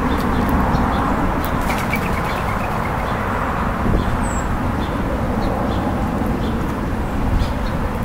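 Small birds feeding on a wooden picnic table: light ticks of beaks pecking seed on the boards and a quick run of high chirps about two seconds in. About four seconds in, a brief flutter of wings as a Eurasian collared-dove takes off. Under it all is a steady outdoor rumble.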